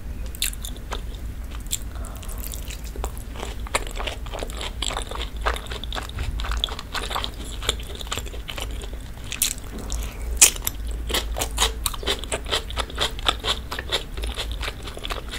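Close-miked eating: chewing and biting into sauce-dipped beef steak with roasted garlic, then a grilled red onion ring, as a stream of wet, crunchy mouth clicks. It grows denser and louder about two-thirds of the way through.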